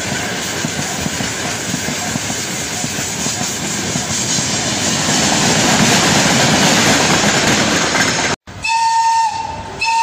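Freight train wagons, open gondolas and hoppers, rolling past close by: a steady rumble with the rattle and clatter of wheels over the rail joints. Near the end the sound cuts off suddenly and an electric locomotive's horn sounds in a short blast, then briefly again.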